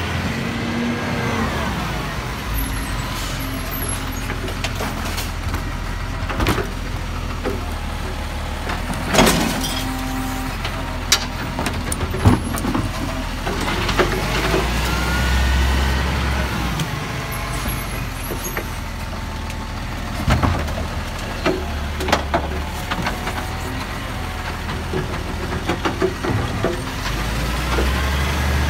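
Side-loader garbage truck's diesel engine running, revving up about every 13 seconds with a rising-then-falling whine as the hydraulic arm lifts and empties a wheelie bin. Sharp knocks and clatters from the bins and the arm come in between.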